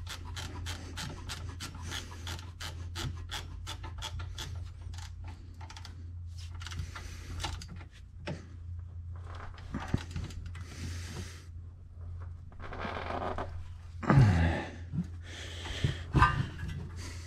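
A hand ratchet clicking quickly, about four clicks a second, as brake caliper bolts are run down snug. After about five seconds the clicking stops and gives way to scraping and rubbing of tools against metal, with a few louder knocks near the end. A steady low hum sits underneath.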